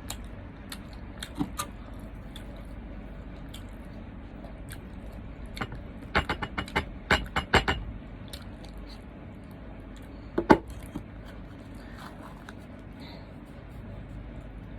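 Eating and food-handling sounds: scattered clicks, then a quick run of sharp clicks and clinks about six seconds in, and a single louder knock about ten and a half seconds in, over a steady low hum.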